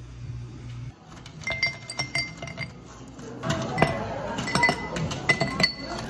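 Ice cubes clinking against a drinking glass: a short run of ringing clinks, then a busier run of them. A low steady hum stops about a second in.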